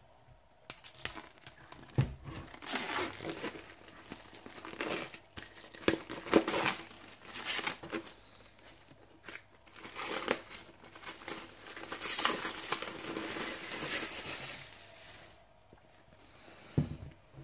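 Plastic shrink-wrap being torn open and peeled off a hardcover book, crinkling and crackling in irregular bursts. The crinkling stops a couple of seconds before the end, and a soft thump follows.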